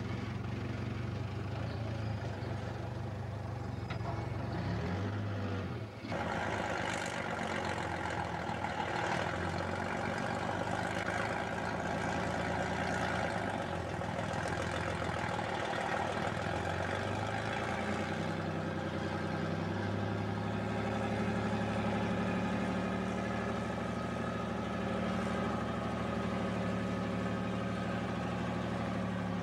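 Cummins 220 diesel engine of a four-axle truck carrier under a Lima Model 65-T cable shovel, running steadily as the rig creeps along at low speed. The sound dips briefly about six seconds in, and the engine speeds up a little around eighteen seconds in.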